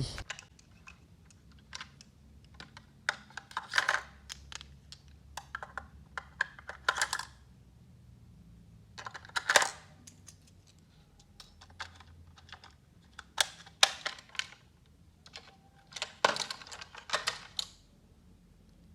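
Irregular clusters of sharp plastic clicks and taps from handling a toy train locomotive while batteries are fitted into its battery compartment. No motor running.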